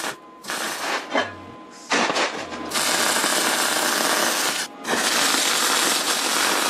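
MIG welder arc crackling and hissing as it lays beads on mild-steel square tubing. It comes first in a few short bursts, then in two long steady runs with a brief break just under five seconds in.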